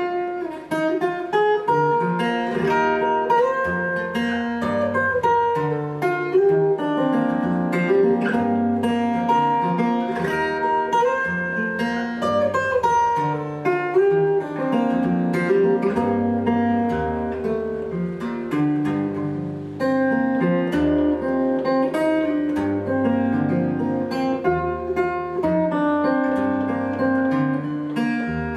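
Solo acoustic guitar played fingerstyle: a plucked melody over bass notes that change about once a second.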